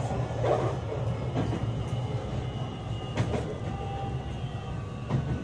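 Running sound aboard a JR West 227 series 'Red Wing' electric multiple unit with Toshiba IGBT VVVF inverter drive (motor car KuMoHa 227-65): a steady low hum and rumble of motors and wheels, with a few sharp clicks from the rails at irregular intervals.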